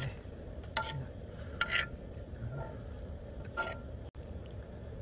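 Metal tongs clicking and scraping against a cast iron griddle pan while pieces of sea eel are stirred and turned: three sharp clicks with a short metallic ring. Under them is a steady low background noise.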